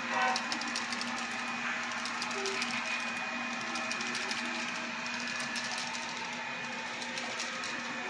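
HO-scale model freight train of covered hopper cars rolling past, the wheels clicking irregularly over rail joints and track work, over a steady hum.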